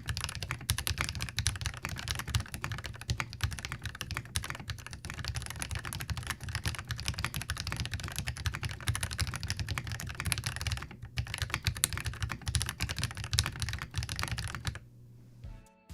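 Fast continuous typing on a Zoom TKL mechanical keyboard fitted with Glorious Lynx linear switches: a dense run of keystroke clacks that stops near the end.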